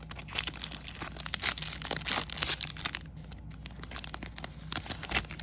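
Plastic wrapper of a Topps baseball-card pack being torn open and crinkled: dense crackling for about three seconds, then sparser rustling.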